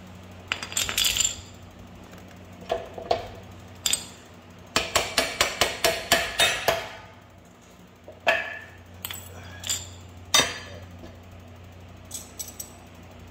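Hammer striking metal at a mini bike's rear axle and sprocket hub: scattered sharp blows, with a quick run of about eight strikes in the middle, then a few single taps.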